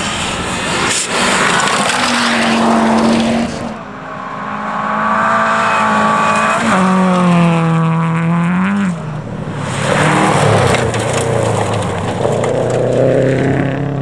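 Rally cars racing on a gravel stage. One rushes past close by at the start with a burst of tyre and gravel noise. Another approaches with its engine revving hard, the pitch climbing and dropping sharply at gear changes, then flashes by about ten seconds in, its engine note falling as it pulls away.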